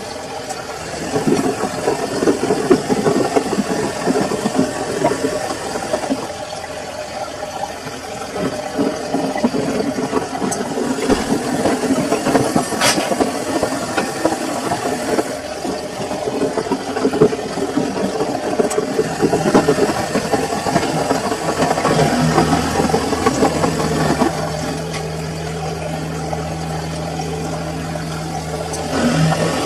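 Samsung washing machine running mid-cycle: an uneven churning and rattling noise, then a steady low motor hum sets in about two-thirds of the way through.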